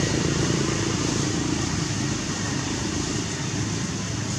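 Motor vehicle engine noise, a steady rumble that slowly fades.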